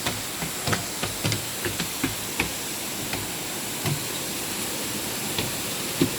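Steady rush of a waterfall, with irregular clicks and knocks over it, about a dozen, the loudest just before the end.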